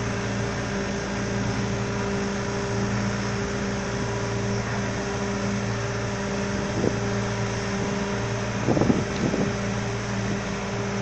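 Excavator's diesel engine running at a steady pitch, with a few short knocks about two-thirds of the way through.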